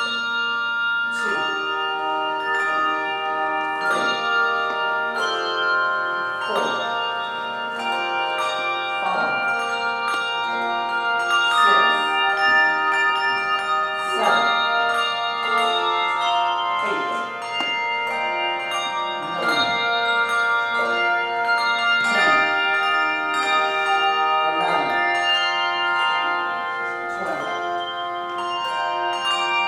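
A handbell choir playing a 3-to-4-octave set of handbells. Chords of several bells are struck together in a steady pulse a little over a second apart, each chord left ringing under the next.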